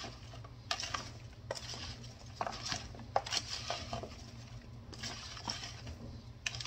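A spoon stirring and tossing chunks of oiled, seasoned root vegetables in a plastic bowl: irregular clicks and scrapes of the spoon against the bowl, with the soft shuffle of the pieces turning over.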